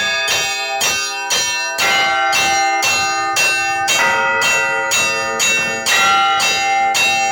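Russian Orthodox church bells rung as the call to vespers: several bells of different pitch struck in a quick, steady pattern, about two strokes a second, their tones ringing on and overlapping.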